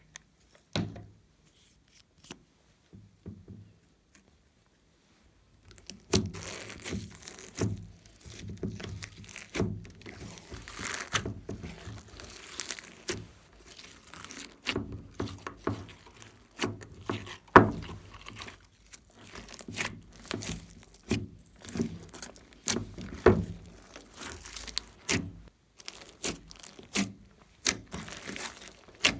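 Glossy slime being kneaded and stretched by hand: sticky crackling with many small pops and clicks. It is mostly quiet for the first few seconds, with only a few clicks, then runs on continuously.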